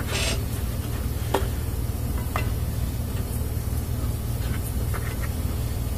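Steady low background hum, with a short rustle at the start and a few light clicks as speaker parts are handled and set together.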